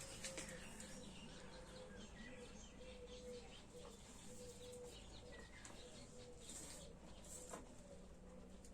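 Faint bird calls: short chirps and a low, repeated cooing over a quiet background.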